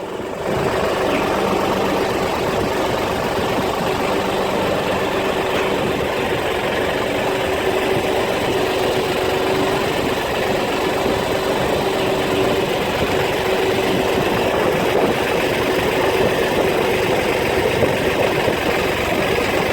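A motor running steadily, with a constant hum at one pitch over steady noise.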